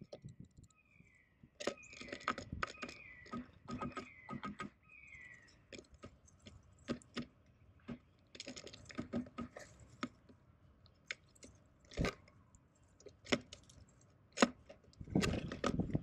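Tufted titmouse pecking and cracking seeds in a tray feeder close to the microphone: sharp, irregular taps and crunches with the rustle of loose seed. A bird gives a series of short falling whistled notes in the first few seconds, and there is a louder low rustle near the end.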